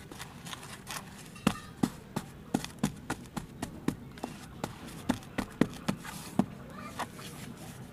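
Hands patting and pressing crumbly damp soil into a mould: a run of sharp pats, irregular, roughly two to three a second.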